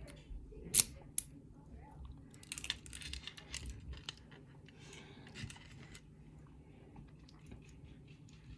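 Small metal lock parts being handled as the lock is taken apart: two sharp metallic clicks about a second in, then a run of faint clicks and light rattling.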